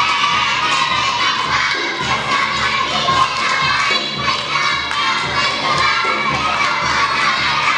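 A group of children shouting and calling out together as they run round in a ring holding hands, with thuds of their bare feet on the stage floor.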